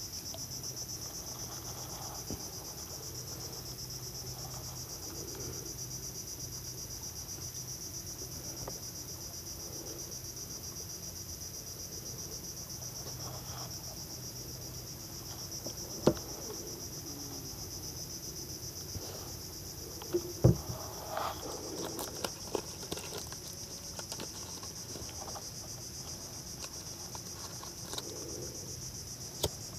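Steady, high-pitched chorus of insects chirring without pause. A few sharp knocks and clicks stand out over it, the loudest about halfway through and again a few seconds later.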